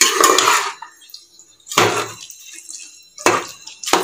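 Metal spoon stirring soaked rice through coconut milk in a cooking pot: four short, wet stirring strokes at uneven intervals.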